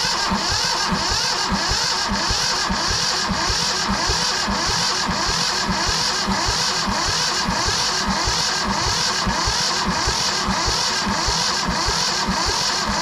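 Yanmar 1500 tractor's diesel engine being cranked over by its starter without firing, with an even beat of about two and a half strokes a second. It is being turned over to pump fuel up to the top of the engine on a tractor that won't start.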